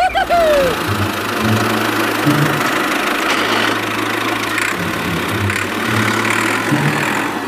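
A small motor running steadily: a low drone under an even hiss, with a short falling tone right at the start.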